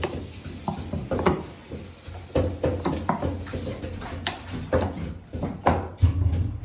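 Knife chopping hard vegetables on a wooden cutting board: a run of irregular sharp knocks, some with a low thud.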